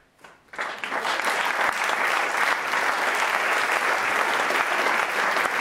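A few first claps, then the audience breaks into full, steady applause about half a second in.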